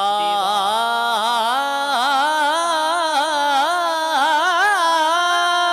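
Young male voice reciting a naat (Urdu devotional poem in praise of the Prophet), drawing out one long ornamented phrase that wavers up and down in pitch without a break.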